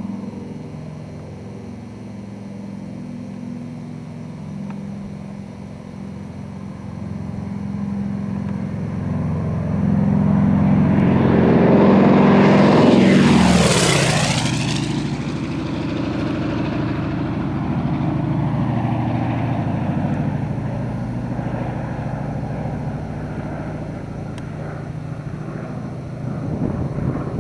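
Lockheed Lodestar's twin radial engines and propellers on a low flyby: the drone builds as the plane approaches, is loudest as it passes close overhead about twelve to fourteen seconds in, drops in pitch as it goes by, then carries on more quietly as it flies away.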